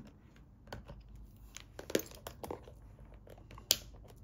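Scattered sharp clicks and taps of small objects being handled on a desk. Two louder clicks come about two seconds in and near the end.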